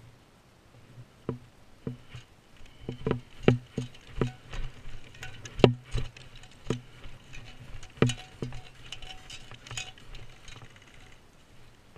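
Footsteps of a walker on a snowy path: an uneven run of knocks with a low thud, about two a second, loudest in the middle and thinning out near the end.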